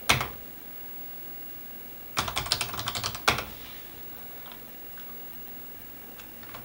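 Computer keyboard being typed on. One hard keystroke at the very start is Enter. About two seconds later comes a quick run of seven keystrokes spelling a short command, ending in another hard Enter press, followed by a few faint ticks.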